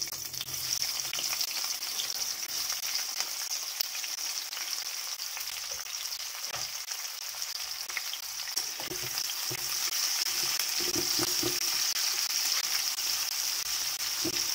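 Sliced onions sizzling as they fry in hot oil in a metal wok, with a spatula scraping and stirring them against the pan in the second half. The sizzle grows slightly louder toward the end.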